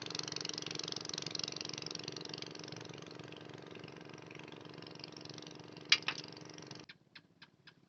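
A small engine running steadily with a hiss, with two sharp clicks about six seconds in; the engine sound cuts off suddenly, leaving a few faint clicks.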